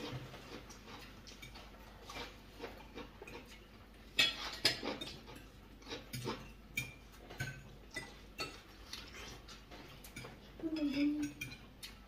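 Forks and cutlery clinking against china plates as several people eat, a scatter of light clicks with a busier run about four seconds in.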